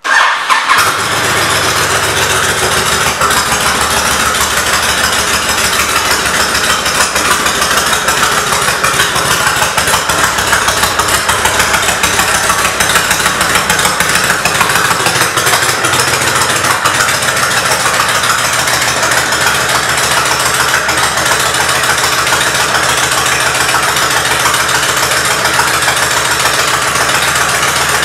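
2006 Honda VTX 1300C's V-twin engine, breathing through Screaming Eagle aftermarket pipes, starting and catching right away, then idling steadily.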